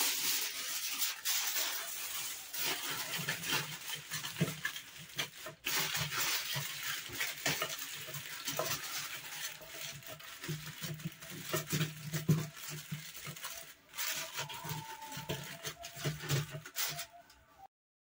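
Aluminium foil crinkling and rustling as it is folded and pressed around a whole chicken by hand, in a continuous run of small crackles. It cuts off abruptly near the end.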